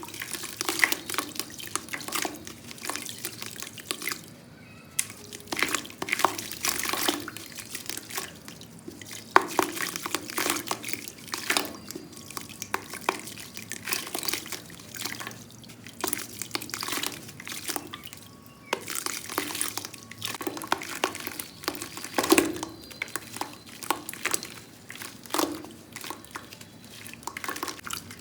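Clumps of soft black sand crumbling and dropping into a bucket of water: an uneven run of small crackles, plops and drips, coming in clusters with short pauses between.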